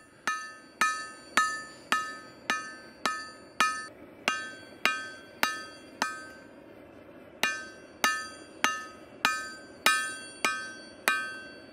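Hand hammer forging a glowing bar of bloomery iron on an anvil: steady blows a little under two a second, each with a bright metallic ring, with a short pause about halfway through.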